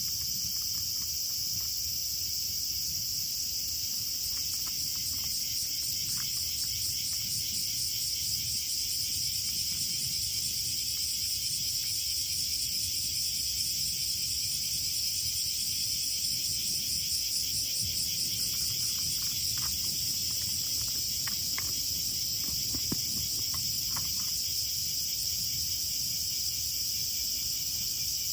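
Dense, steady chorus of singing insects, a high shrill trilling that never lets up, with a few faint clicks near the end.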